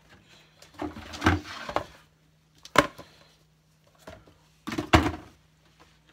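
Handling noises from a cardboard Pokémon card booster box and its contents being opened and sorted: rustling and clicking with a few sharp knocks, the sharpest about three seconds in and about five seconds in.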